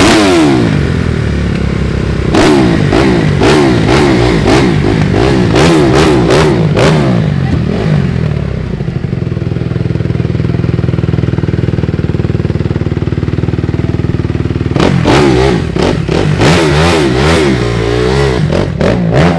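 Dirt bike engines revved hard in quick, repeated bursts, rising and falling several times a second, while doing burnouts on the tarmac. In the middle the revs are held steadier for several seconds, then the rapid revving resumes.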